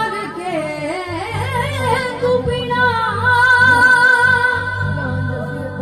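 A woman singing a Punjabi devotional shabad live through a PA system, backed by keyboard and dholak. The vocal line bends through ornamented phrases and then settles into long held notes about halfway through.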